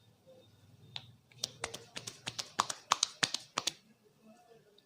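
Rapid run of about fifteen sharp slaps and cracks from hands working on the head during a massage, roughly seven a second for about two seconds, after a single crack about a second in.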